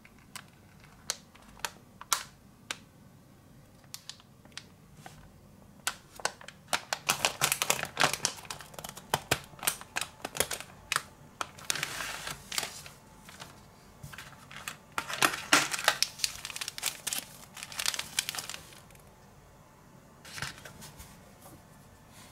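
Plastic packaging of a DIY gummy-candy kit crinkling and rustling as it is handled and opened. There are scattered light clicks at first, then long stretches of dense crinkling, and the thin plastic tray and sachets click as they are taken out.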